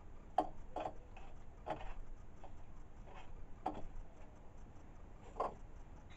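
About six knocks of a mallet tapping a workpiece down into a milling-machine vise, irregularly spaced, the sharpest coming just under half a second in.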